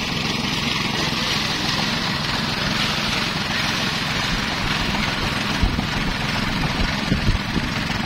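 Small gasoline engine running steadily, driving a portable rice thresher as bundles of rice stalks are fed into its drum. A few low thumps stand out in the second half.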